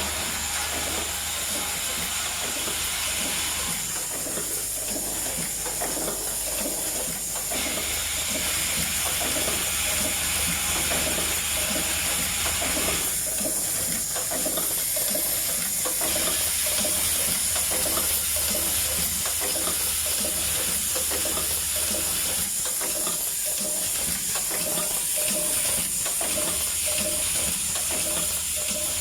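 Automatic spout pouch sealing machine running: a steady hiss with rapid, even mechanical clicking. A low hum under it drops out a few times.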